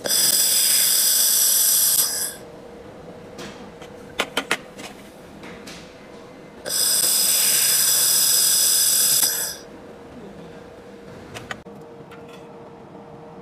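ANDES handheld fiber laser welding torch firing in two short passes of a few seconds each on an aluminium joint, each a loud, high-pitched buzzing whine that starts and stops abruptly. Three quick clicks fall between the passes, and a steady faint hum runs underneath.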